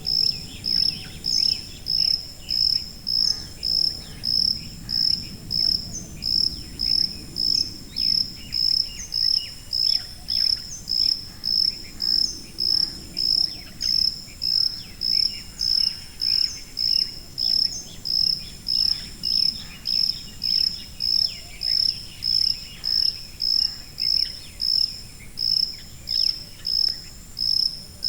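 A cricket chirping steadily in a high-pitched, even rhythm, about two short chirps a second, over a faint low background rumble.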